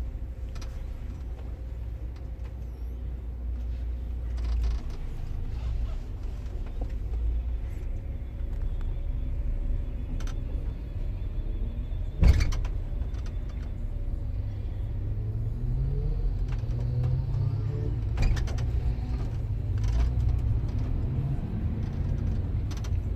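Bus engine and road rumble heard from inside the upper deck, a steady low drone. About twelve seconds in there is one sharp knock, the loudest sound. In the second half the engine note rises as the bus gets moving.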